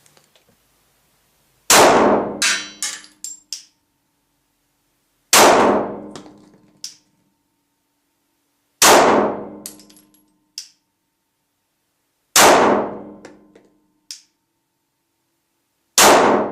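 Five single shots from a Glock pistol in slow, even fire, about three and a half seconds apart, each ringing out in the small room, with a fainter click or two after some shots.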